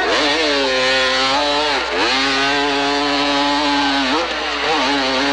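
Hillclimb motorcycle engine pulling hard up a steep dirt hill, its pitch holding steady, then dropping and rising again about two seconds and four seconds in.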